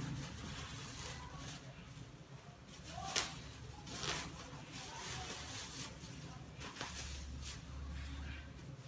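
Thin plastic bag crinkling and rustling as it is handled and shaken, with a sharp crackle about three seconds in and several more later, over a low steady hum.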